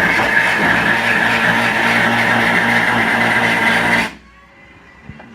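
A power tool running steadily at a constant speed, rough-cutting into a car's sheet-metal body panel. It stops suddenly about four seconds in.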